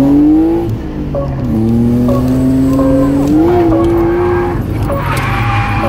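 BMW E36 Compact's 2.8-litre straight-six revving hard under load, heard from inside the cabin: the pitch climbs, drops sharply just before a second in, climbs again and falls away near the end.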